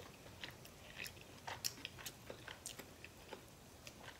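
A person chewing a pickled onion: faint, irregular short crackles and wet clicks of chewing.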